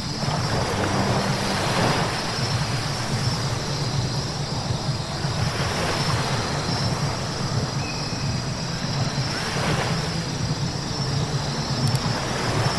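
A car driving on a wet road: a steady low rumble with tyre hiss on wet pavement. The hiss swells twice, about a second in and again near ten seconds.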